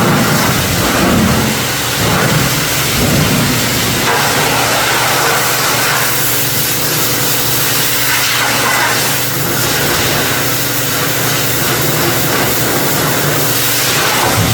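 Pressure washer running steadily, its water jet hissing as it sprays the grease off an old steel tool box.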